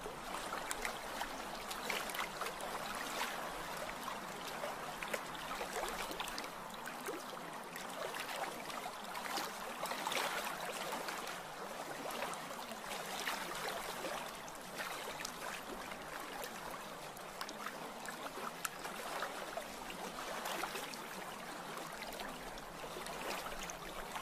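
Steady running water with small splashes and trickles, swelling and easing gently.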